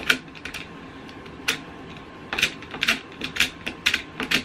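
A razor blade scraping along the painted edge of a wooden picture frame in short rasping strokes, chipping off the white paint to give a worn, chippy finish. The strokes are scattered at first, then come about two a second in the second half.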